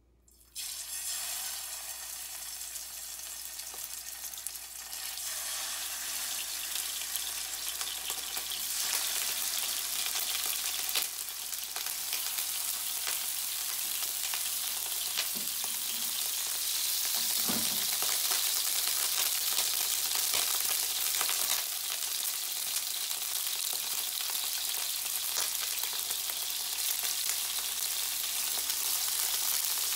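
Pork loin rolls wrapped around long green onion sizzling in hot oil in a frying pan. The sizzle starts suddenly about half a second in as the first roll goes in seam side down, and grows louder over the first several seconds as more rolls are added.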